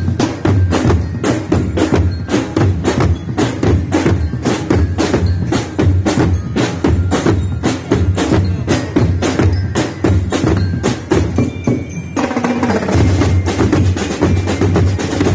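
Parade drum band of bass drums and other marching drums beating a fast, driving rhythm of sharp strikes. About twelve seconds in the pattern changes to a denser, more continuous drumming.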